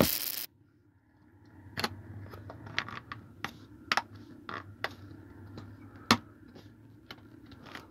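Plastic parts of a Siemens Landis PLC termination module clicking and tapping as the circuit board is worked back into its housing and snapped into place: scattered sharp clicks a second or so apart, over a low steady hum. A short burst of handling noise comes at the very start.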